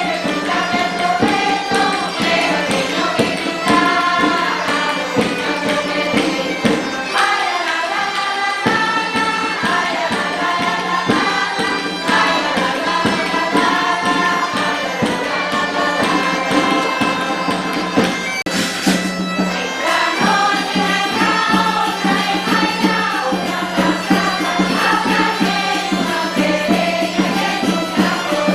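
Traditional folk music: a melody over a steady low drone, with regular percussion. The drone drops out briefly about seven seconds in.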